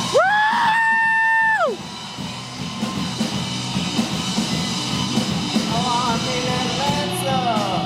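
Live band playing a blues-rock song. A singer holds a long, high yelled note for about the first second and a half, then the band plays on with bending guitar notes near the end.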